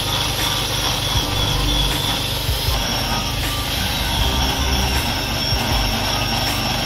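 Angle grinder grinding down a steel rail at a fresh rail weld, a steady high whine over the rasp of the disc biting the metal.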